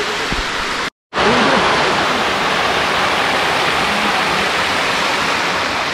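Waterfall rushing in a steady, loud hiss of falling water, broken by a split-second dropout about a second in.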